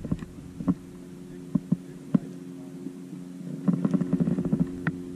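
Scattered light clicks and taps from handling a fishing rod and reel in a kayak, with a quicker run of clicks near the end, over a steady low hum.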